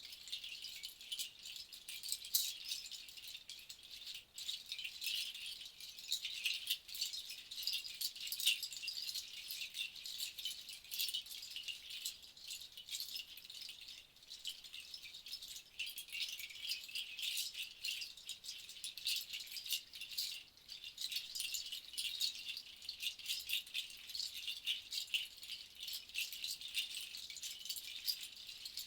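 Seed rattles shaken continuously, the seeds making a dense, dry, fast rustling with an uneven pulsing rhythm.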